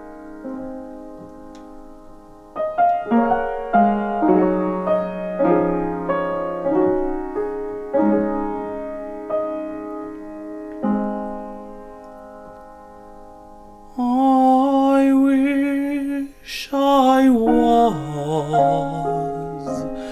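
Upright piano playing a slow, gentle introduction, single notes and soft chords left to ring. About fourteen seconds in, a man's voice begins singing with vibrato over the piano.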